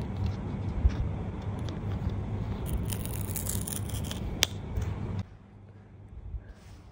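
Paper tear-strip seal being pulled off the end of an Apple Pencil Pro box: scraping and rustling of card under the fingers, with a louder tearing rip about three seconds in and a sharp click just after. A low steady hum sits underneath, and it all falls quiet a little after five seconds.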